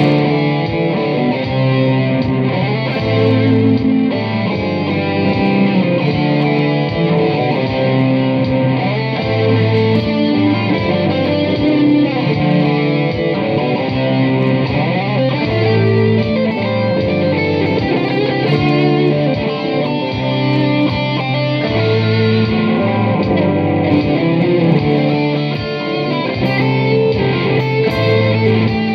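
Rock band music led by electric guitar, playing steadily.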